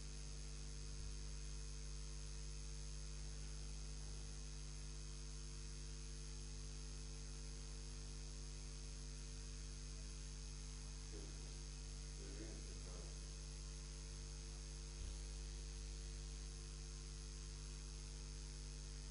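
Steady electrical mains hum with a layer of hiss on a broadcast audio line carrying no programme sound, the dead air of a technical fault in the transmission. A faint brief murmur comes about two-thirds of the way in, and a small click a little later.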